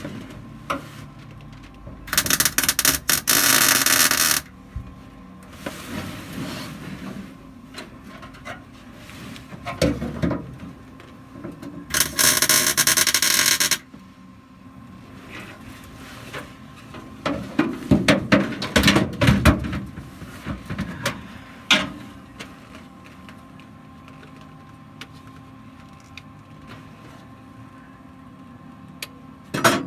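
Gas-shielded wire welder laying two tack welds on steel trunk brackets, each a burst of loud arc crackle about two seconds long, the first about two seconds in and the second about twelve seconds in. Between and after them come knocks and clatter of metal parts being handled.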